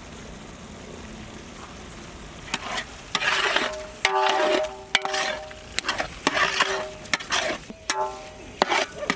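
Mutton keema simmering in a metal pot, then from about two and a half seconds in a ladle stirring it, with repeated ringing scrapes and a few sharp knocks of metal on metal.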